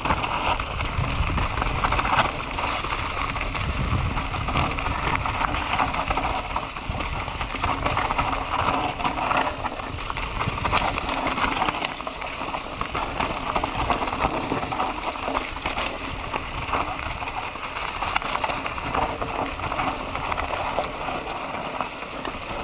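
Enduro mountain bike riding downhill on a forest trail: tyres rolling and crunching over dry leaves, dirt and loose stones, with the bike rattling and knocking over bumps.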